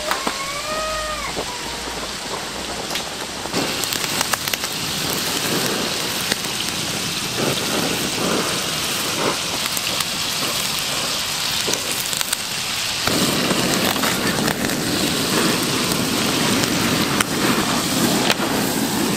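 Pieces of pork offal sizzling on a hot grill: a dense hiss with scattered crackles and pops, growing fuller about two-thirds of the way through.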